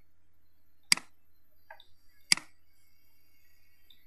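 Computer mouse button clicked twice, about a second and a half apart, each a sharp click with a softer release just after.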